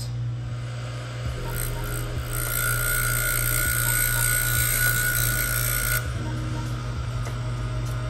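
Electric piston ring end-gap grinder running steadily, its abrasive wheel grinding the end of a top compression ring to open the end gap by about another thousandth. The grinding is a steady high-pitched hiss that starts about two seconds in, lasts about three and a half seconds and stops abruptly when the ring comes off the wheel.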